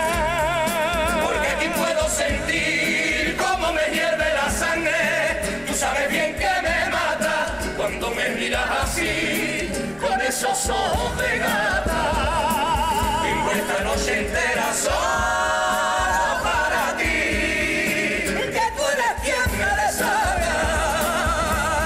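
Carnival comparsa choir singing in several-part harmony with a wide vibrato, over strummed Spanish guitars and a steady beat from bass drum and snare.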